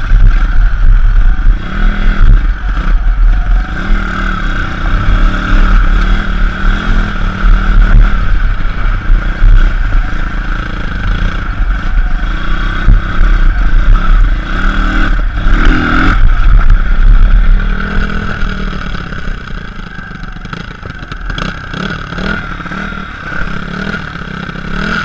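Pit bike engine running under throttle while the bike is ridden over bumpy grass, with a heavy low rumble throughout. The engine eases off and the sound gets quieter from about three-quarters of the way through as the bike slows.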